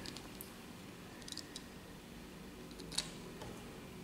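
A few faint light clicks and taps of a small toy car being handled and set down on a wooden table, the sharpest click about three seconds in.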